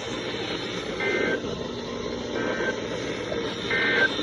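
Emergency Alert System end-of-message tones: three short two-pitch digital data bursts about a second and a half apart, marking the end of the severe thunderstorm warning. They sound over steady weather-radio static hiss.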